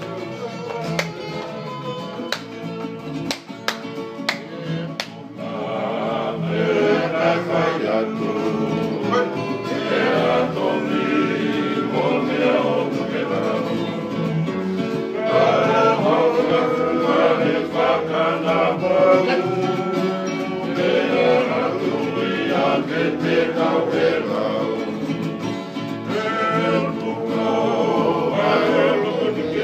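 A group of men singing together over strummed acoustic guitars and an electric bass. The first few seconds are strumming alone; the voices come in about six seconds in and carry on over the guitars.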